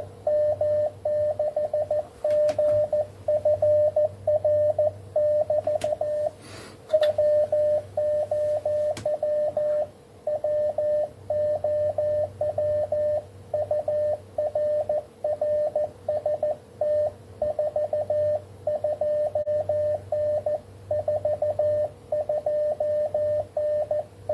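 Morse code (CW) signal received on the 20 m band and heard through an Icom IC-7300 transceiver's speaker: a single high beep keyed in quick dots and dashes, with short gaps between words. A steady lower tone and a faint hum run beneath it.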